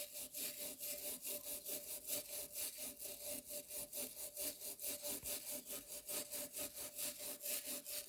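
Wire brush scrubbing rust off a rusted Record 98 pipe vice in quick back-and-forth strokes, about four to five a second, stopping abruptly near the end.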